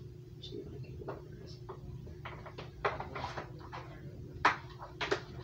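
Scattered knocks and clicks of computer cables and plugs being handled and bumped against a TV stand while they are untangled and rerouted. The loudest knock comes about four and a half seconds in.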